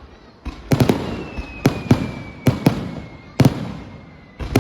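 Aerial fireworks shells bursting: about ten sharp bangs, some in quick twos and threes, each followed by a rumbling echo. A faint high tone slowly falls in pitch under the bangs from about a second in.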